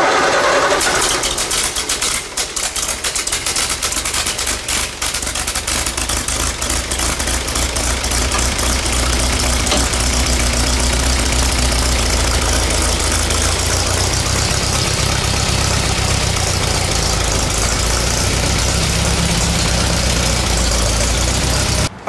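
Old Allis-Chalmers tractor engine running, uneven at first with irregular popping and knocking in the firing, then settling into a steadier idle.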